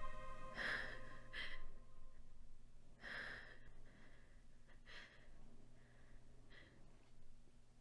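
A woman's frightened breathing: faint, short breaths and gasps at uneven gaps of a second or two, over a low steady hum.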